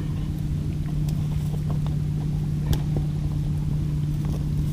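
A steady low motor drone runs on evenly, over an unsteady low rumble of wind on the microphone. A few short, sharp clicks sound, one about a second in and one near the three-second mark.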